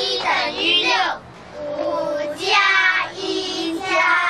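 Children singing arithmetic sums in Mandarin, such as "five plus one equals six", in short sung phrases.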